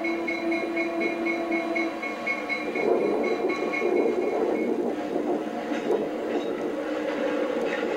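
Fairbanks-Morse H-12-44 diesel switcher, with its opposed-piston engine, running as it approaches with a train and draws close; the engine and rail noise swell about three seconds in. Over it, a steady tone with a quick regular pulse sounds for the first few seconds.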